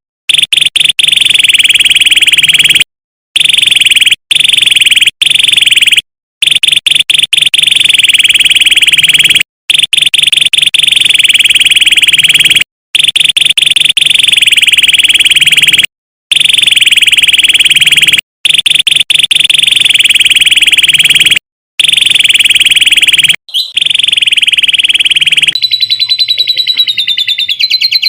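Domestic canary singing long, rapid, buzzing trill phrases, each a few seconds long and cut apart by brief silent gaps. This is canary 'isian' song used as master song for training songbirds. Near the end the song changes to faster, higher, more varied chattering.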